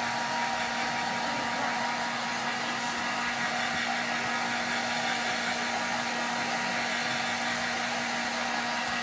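Blow dryer running steadily: an even whir of blown air with a low hum under it.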